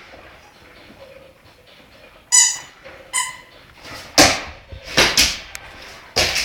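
Two short, high-pitched squeaks about a second apart, then several rough, hissing bursts.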